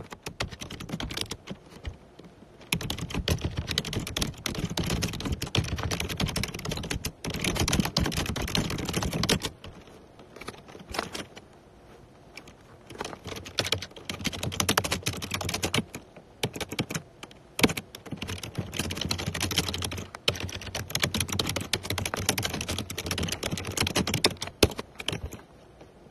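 Fast typing on a computer keyboard: two long runs of rapid keystrokes with a lull of scattered clicks in between.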